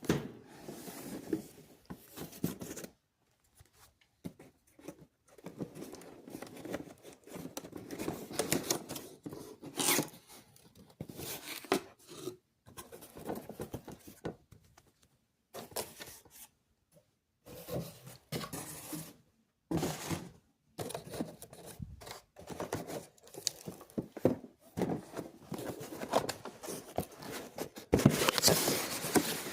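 Cardboard box and plastic packaging being handled and unpacked: irregular rustling and crinkling in short bursts with brief pauses, loudest just before the end.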